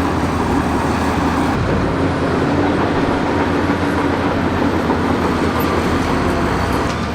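Heavy earth-moving machine's diesel engine running with a steady low rumble and a faint held drone.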